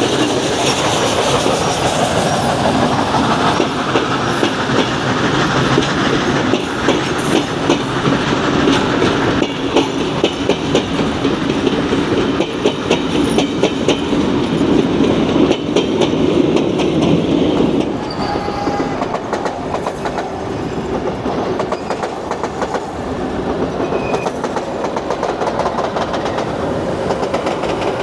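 Passenger carriages of a train rolling steadily past, their wheels clicking and rattling over the rail joints in a dense, continuous rumble that eases a little about two-thirds of the way through.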